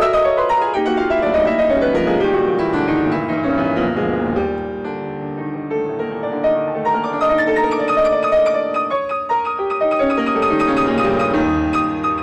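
Solo grand piano playing a classical piece: fast descending runs over the first few seconds, a softer passage about halfway through, then the playing builds again near the end.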